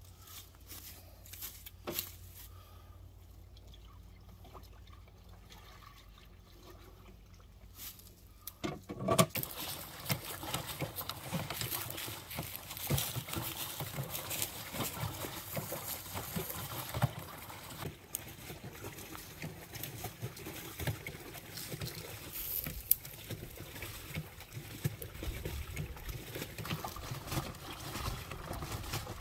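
Water and wet laundry sloshing and splashing inside a stainless-steel hand-operated washing machine as its lever agitator is worked back and forth. The sloshing starts suddenly about nine seconds in, after a quiet stretch with a few faint clicks.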